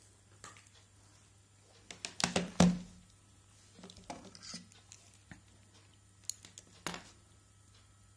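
Handling noise on a wooden table: a few sharp knocks and clicks of hard objects as a multimeter and its test leads are picked up and set in place. The loudest cluster of knocks comes a little over two seconds in, with fainter clicks later.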